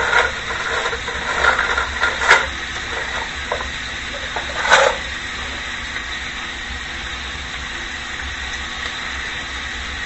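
Steady sizzling hiss of a pan of juices and vegetables heating on the stove toward a boil, with a few short utensil clicks in the first five seconds.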